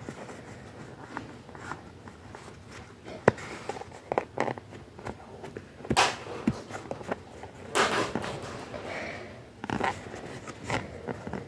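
Close handling noises from a blank mask and its string: scattered clicks and taps with short rustles, the loudest rustles about six and eight seconds in.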